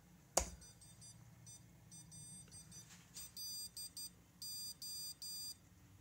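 One key click, then a small electronic buzzer beeping out "hello" in Morse code: a run of short high beeps, fainter at first and louder in the second half, ending in three long beeps for the O.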